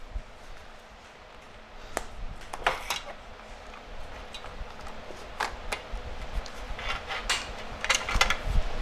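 Scattered light clicks and clinks of small hard objects being handled and set down, thickening into a quick run of clicks near the end.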